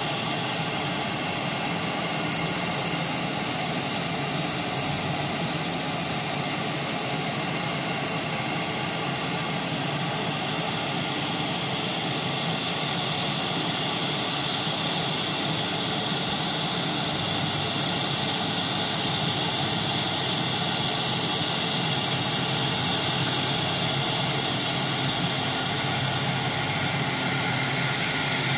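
CNC router spindle running steadily while cutting PVC foam board, a constant machine noise with several steady high tones over it.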